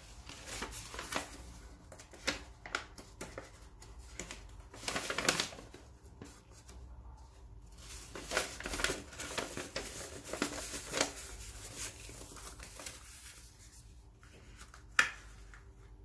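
Paper sheets being unfolded, folded and handled, giving crisp rustling and crinkling in irregular bursts. A single sharp click sounds near the end.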